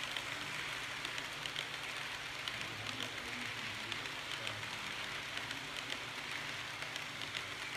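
Model passenger train rolling past on model railway track: a steady rolling rush of the coaches' wheels on the rails, with many small irregular clicks as they run over the rail joints, and a faint low hum underneath.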